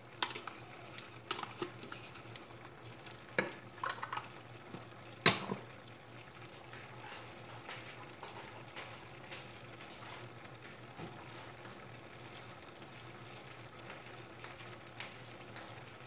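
Metal spoon clinking and scraping in a pan of chicken and yogurt, with one sharp clack about five seconds in. After that, a faint steady sizzle from the pan heating on the hob.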